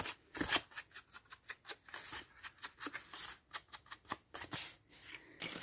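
Ink blending tool's pad rubbed and dabbed along the edges of a cardstock piece to ink them, a quick, irregular run of short scratchy brushing strokes on the paper.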